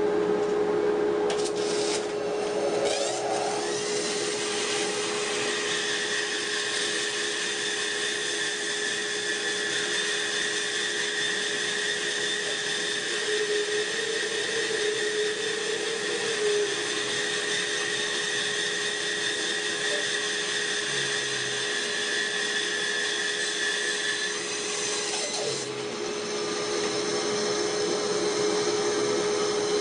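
A dust collector runs steadily while a Rikon bandsaw is switched on near the start and spins up. It then saws through a log, a steady cutting sound that lasts until about 24 seconds in. Shortly after, the saw is switched off and its blade coasts down.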